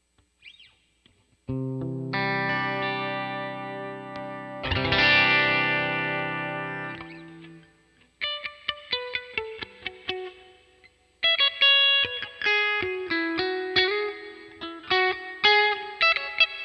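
Electric guitar played through a Vox AC30 amp simulation (STL AmpHub). Held chords come in about a second and a half in, and a strong strummed chord about five seconds in rings out. From about eight seconds, quick single picked notes follow in a running pattern.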